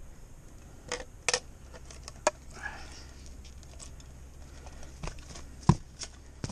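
Scattered sharp taps and clicks on wooden plank boards, with one heavier thump about two thirds of the way in.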